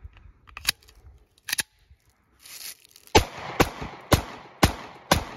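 Two sharp clicks as the Taurus GX4 9mm pistol is handled, then five shots fired in quick succession about half a second apart, each with a trailing echo. The pistol cycles round after round with mud and grit in the action.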